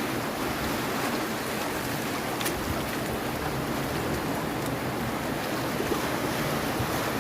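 Ocean waves washing onto a beach: a steady, continuous surf.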